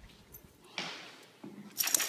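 A dog sneezing twice, two short sharp sneezes about a second apart, the second louder.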